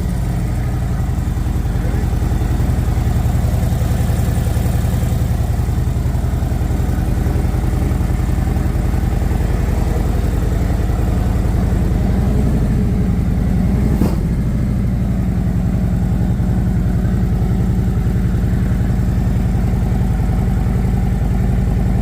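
Harley-Davidson Road Glide ST's Milwaukee-Eight 117 V-twin running steadily at idle through its new aftermarket exhaust. The revs rise slightly a little past halfway, and there is one sharp click shortly after.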